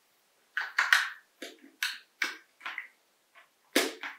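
Small plastic clicks and scrapes from a toy RC car's battery plug and battery compartment being handled as the battery is connected and pushed into place: a string of short clicks, the loudest near the end.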